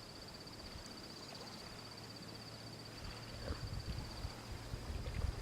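An insect, cricket-like, trilling steadily in a high, fast, even pulse. From about three seconds in there are low bumps and rumble.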